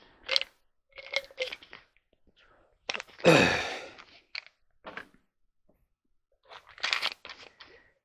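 Plastic packing crinkling and rustling in a cardboard box as hands rummage through it, in short irregular bursts. About three seconds in comes a louder sweeping sound that falls in pitch.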